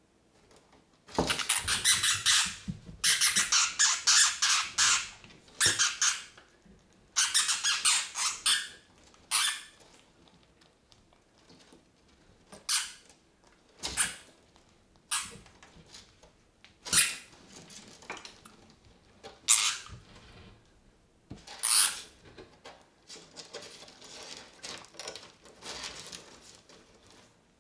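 Hamster squealing in distress while caught in a monitor lizard's jaws: long runs of high-pitched squeals over the first several seconds, then shorter, sharp squeaks every second or two.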